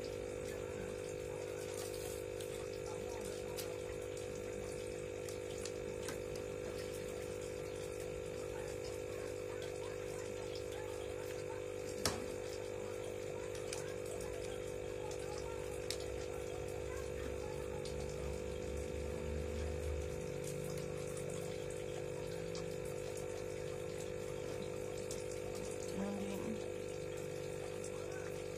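Scattered clicks and knocks of the wire and plastic parts of a hamster cage being handled and fitted together, with one sharper click about twelve seconds in, over a steady hum.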